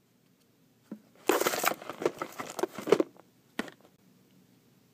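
Hands handling small items on a desk: a click, then about two seconds of rustling and crinkling, then another click.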